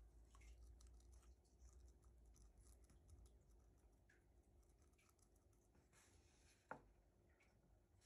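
Near silence, with faint scratching and crackling of fingers packing damp soil into a small glass tube. There is one sharper tap a little before the end.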